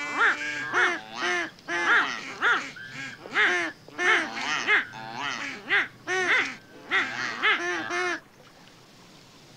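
Duck calls blown in a fast run of short quacks that bend in pitch, stopping abruptly about eight seconds in.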